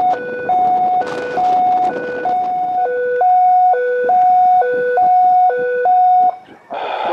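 Emergency vehicle's two-tone hi-lo siren, with a high note and a low note alternating, each held about half a second. It sounds as part of a tsunami evacuation alert and cuts off about six seconds in.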